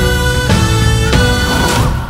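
Musical-theatre band music: drum hits under held chords, with no singing.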